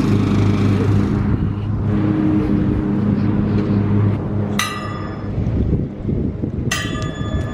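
A steady low engine-like drone, with two sharp ringing notes struck about halfway through and again near the end.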